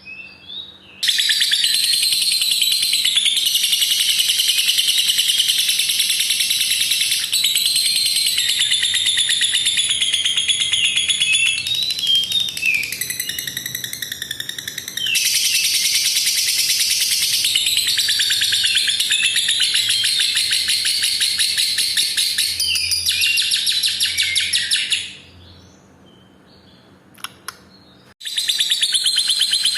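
A lovebird's long, very rapid chattering trill (the 'ngekek' song), held for many seconds at a time. It breaks into looser chirps briefly in the middle, stops for a few seconds near the end, then starts again.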